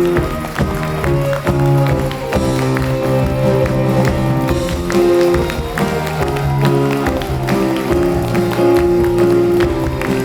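Live curtain-call music from a musical's band, held notes over a steady beat.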